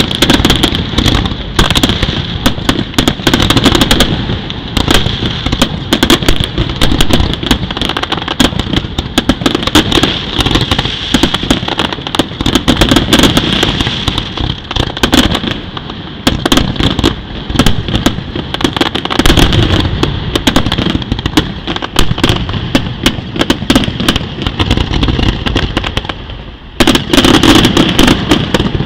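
Aerial firework shells bursting in a rapid, continuous barrage of loud bangs. Near the end there is a brief lull, then a loud cluster of bursts.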